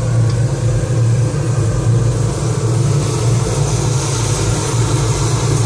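Homemade waste-oil furnace burning hard with its blower fan turned up: a steady, loud roaring with a deep hum underneath.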